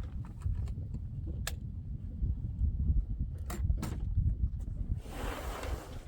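Wind buffeting the microphone as a steady low rumble, with a few sharp clicks at intervals and a brief rustle near the end.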